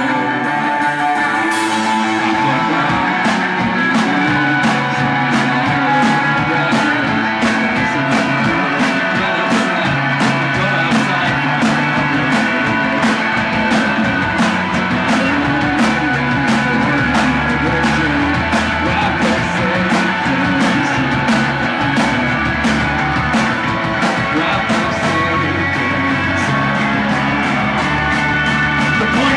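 Rock band playing live: electric guitars, bass guitar and drum kit, the drums filling in with steady beats about two seconds in.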